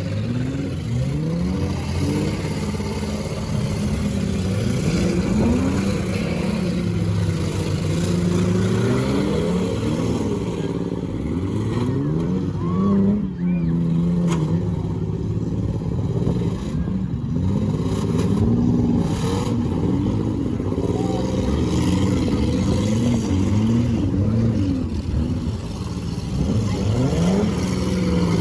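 Several demolition derby cars' engines revving up and down over and over, their pitches rising and falling as the cars accelerate into hits and back away.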